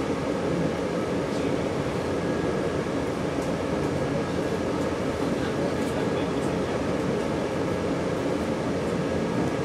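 Steady running noise heard inside a 485-series electric train car moving along the line: an even rumble of wheels on rail with a faint steady tone over it.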